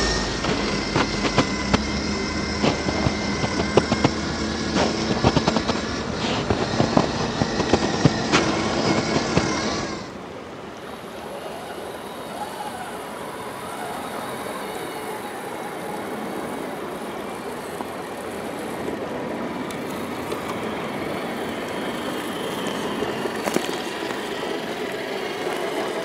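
An electric RC scale crawler drives over crusted snow and ice: a whining motor and gears, with many crackling clicks from the tyres. About ten seconds in, the sound cuts to a quieter flowing creek, with a faint motor whine from an RC truck wading through the water.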